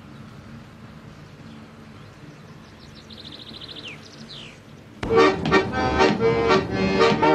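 A quiet steady rumble with a few short high chirps. About five seconds in, a brass band suddenly strikes up a lively tune with a brisk, even beat.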